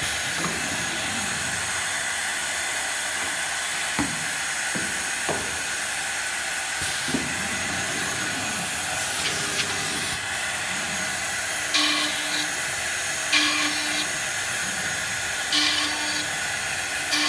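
Holztek CNC horizontal drilling machine running with a steady hiss while its drill head travels and bores a row of holes into the edge of a particleboard panel. A few sharp clicks sound early on the head's travel, and several short whirring bursts come in the second half as the bit cuts.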